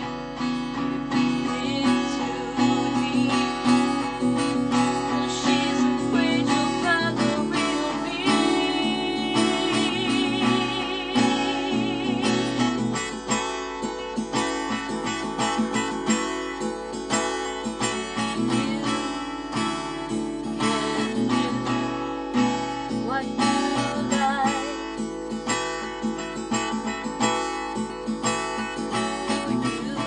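Acoustic guitar strummed and picked through a folk song, with a woman's voice singing over it in places, including a wavering held note around the middle.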